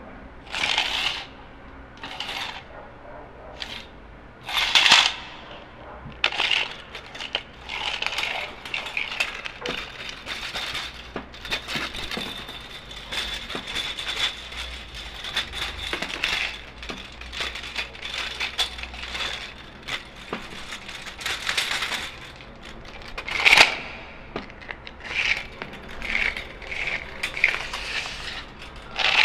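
Metal tape measure being handled: the steel blade and case clicking, rattling and scraping in irregular bursts. In the middle there is a longer stretch of continuous scraping with a faint high ringing tone.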